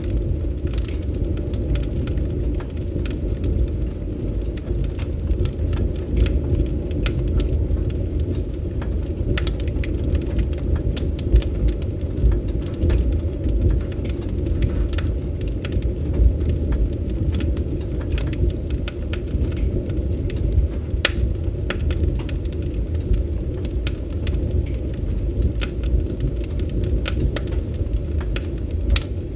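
Wood fire crackling: irregular sharp pops and snaps scattered over a steady low rumble of burning.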